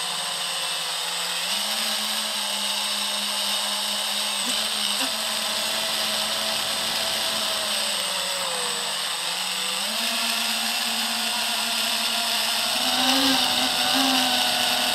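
FPV quadcopter's electric motors and propellers whining, heard close from the craft's onboard camera, the pitch stepping up and down with the throttle. The pitch dips about eight seconds in, climbs again about ten seconds in, and rises louder near the end.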